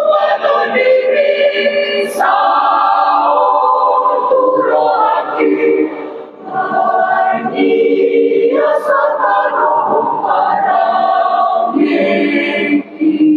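Mixed choir of men's and women's voices singing in harmony, holding chords in long phrases, with a short breath between phrases about six seconds in.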